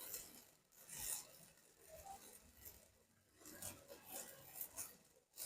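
Near silence: room tone with a few faint, short scrapes and rubs scattered through it.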